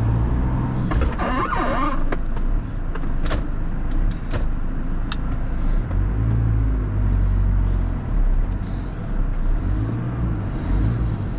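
4x4 engine running at low revs while crawling slowly off-road, its note lifting briefly a couple of times, with a few sharp knocks and clicks along the way.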